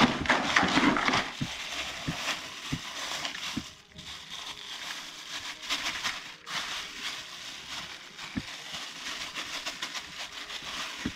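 A plastic bag of hemp seed being shaken and squeezed out into a plastic bucket of corn: the bag crinkles while the seeds spill onto the pile, with a few small knocks and two short pauses.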